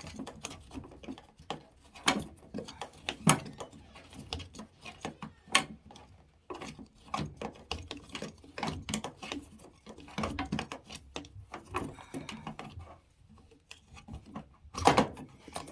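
Irregular clicks, taps and knocks of hard plastic being handled as a Samsung washing machine's drain filter is twisted counterclockwise and drawn out of its housing. A sharp knock comes about three seconds in and another near the end.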